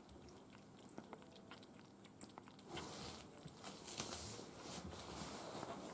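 A kitten crunching and chewing dry cat food from a bowl: faint rapid little clicks, with two sharper crunches in the first half.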